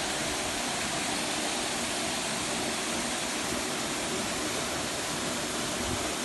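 A steady, even rushing noise that holds unchanged throughout, with no distinct knocks or voices.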